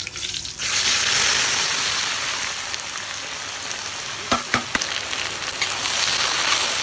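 Sliced onions dropped into hot mustard oil in a kadai: a loud sizzle starts suddenly about half a second in and keeps going as they are stirred. A few sharp metal clinks come midway.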